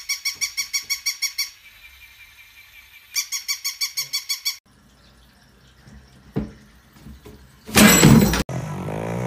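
Battery-operated plush toy dog giving its electronic yap: a rapid run of identical high beeping chirps, about seven a second, in two bursts with a short pause between. Later a short loud rushing noise, the loudest sound, followed by a brief wavering cry near the end.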